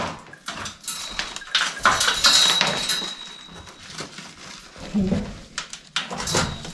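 Crumbling clay mortar and loose stone being scraped and pushed out by hand from around a wooden lintel in a rubble-stone wall: irregular scraping, crumbling and small clattering knocks.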